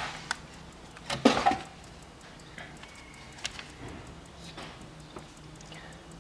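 Light metallic clinks and clicks of things being handled, loudest in a short cluster about a second in, then a few faint isolated ticks over a low steady hum.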